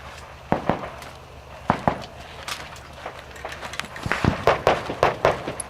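Handgun shots fired during a practical-shooting stage: quick pairs of shots, then a faster string of shots near the end.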